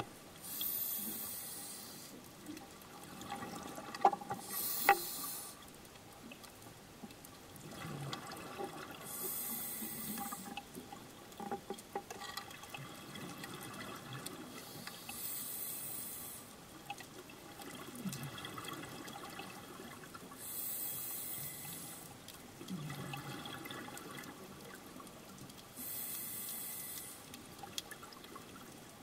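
Scuba diver breathing through a regulator underwater: a hiss about every five to six seconds with bubbling and gurgling between. Two sharp knocks about four and five seconds in, louder than the breathing.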